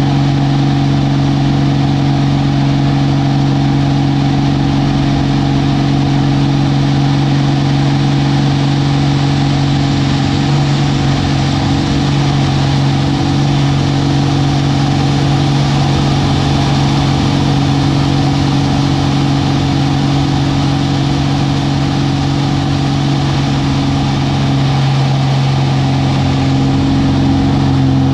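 Aerobatic plane's piston engine and propeller running with a steady drone, heard from inside the cockpit over rushing air noise. The pitch wavers slightly about a third of the way in and again near the end as the plane manoeuvres.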